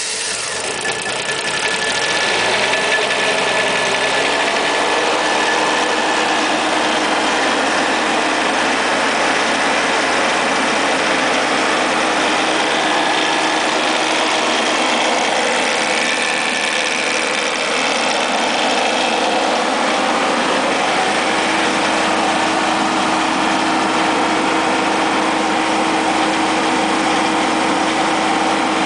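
Engine of a canopied generator set, just started, picking up speed over the first few seconds and then running steadily.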